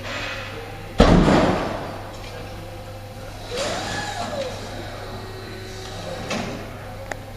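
Forklift truck at work: a loud bang about a second in that rings out, then a whine that rises and falls in pitch, and a few lighter knocks over a steady low hum.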